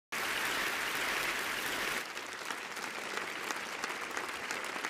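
Audience applauding, a dense steady clapping that thins out about two seconds in into lighter applause with separate claps standing out.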